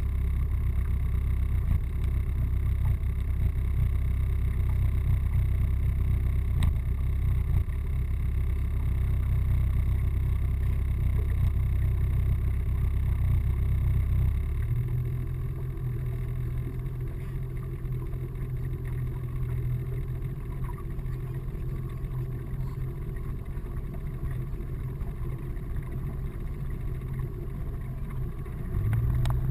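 A fishing boat's motor running under way, a loud low rumble. About halfway through the rumble eases into a steady low hum, and just before the end it grows louder again.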